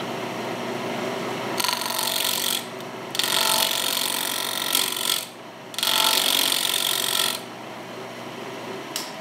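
Wood lathe running with a steady hum while a turning tool cuts the spinning rectangular mahogany bowl blank in three loud scraping passes, the last ending about two-thirds of the way in. The corners of the rectangular blank make it an interrupted cut, the tool striking as much air as wood.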